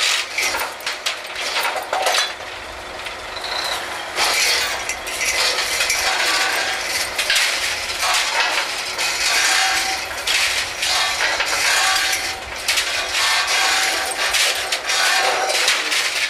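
Drill-floor work on an oil rig during a drill-pipe connection: repeated metal clanks and knocks from the tongs, slips and pipe over the steady noise of the rig's machinery.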